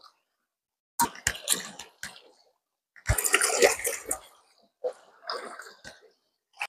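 Water splashing in several short bursts. The loudest comes about three seconds in and opens with a low thump.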